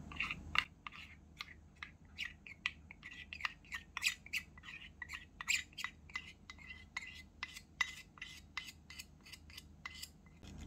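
Small metal spoon clicking and scraping against a miniature steel cup as batter is stirred, in quick irregular strokes about three a second.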